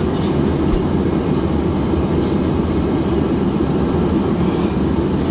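Steady low rumble inside a car's cabin with the car running, with light rustling of cold-weather clothing and a beanie being pulled on.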